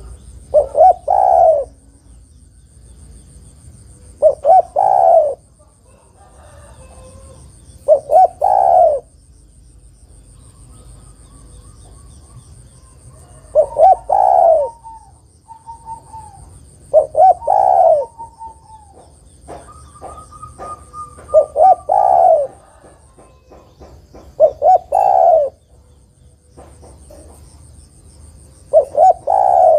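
Spotted dove cooing: eight phrases about every three to four seconds, each two quick notes run into a longer, lower coo.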